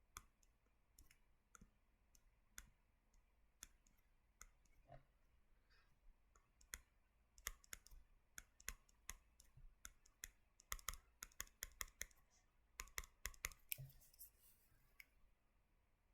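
Faint, scattered clicks and taps from drawing chemical structures on a computer. They are sparse at first, then come in quick runs of several clicks in the second half.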